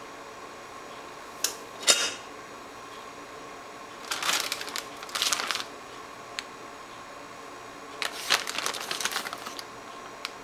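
Hand-handling noises: two sharp clicks, then two bursts of crackly rustling a few seconds apart, as a packet and a garlic clove are handled, over a steady faint hum.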